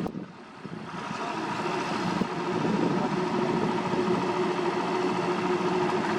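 Diesel engine of heavy road-paving machinery running steadily, growing louder over the first few seconds and then holding.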